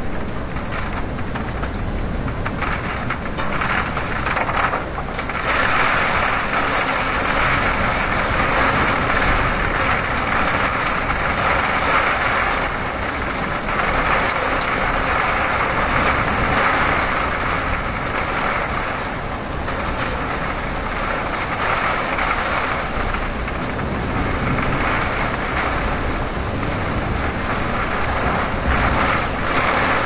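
Thunderstorm: rain falling steadily, heavier from about five seconds in, over a low rumble of thunder.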